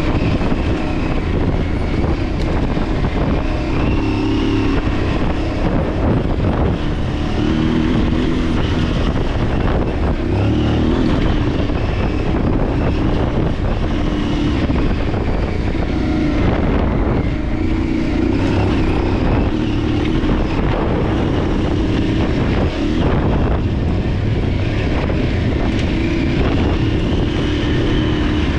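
Aprilia adventure motorcycle's engine running under way on a dirt trail, its revs rising and falling every few seconds as the throttle is worked, over steady wind and road noise.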